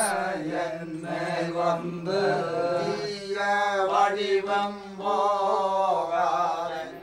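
Male chanting of a Hindu prayer to Shiva in the Tolpava Koothu shadow-puppet ritual, sung in long held notes that slide slowly from pitch to pitch, closing the night's performance.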